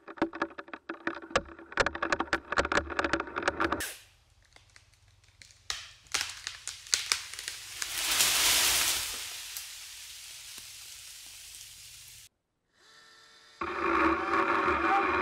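Sharp, rapid cracking and snapping of wood for about four seconds, then a quiet stretch in which a hiss swells and fades. Near the end a DeWalt brushless battery chainsaw starts whining steadily as it cuts into the log.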